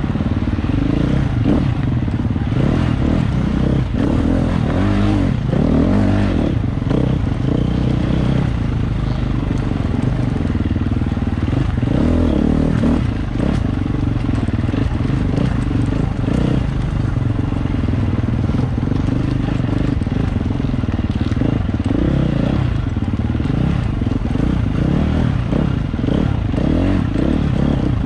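Off-road dirt bike engine running hard the whole time, its revs rising and falling with the throttle.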